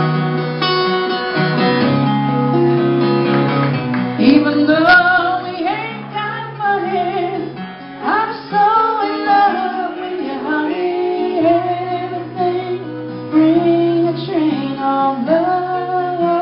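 Live acoustic guitar strumming chords, joined about four seconds in by a woman's voice singing a drawn-out melody over it.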